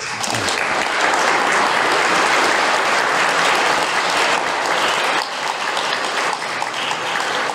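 Large audience applauding steadily, easing off a little about five seconds in.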